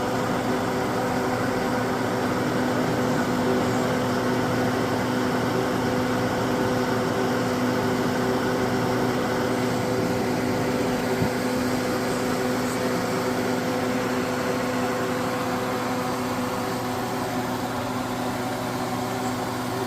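Air fryer running: a steady fan whir with a constant low hum.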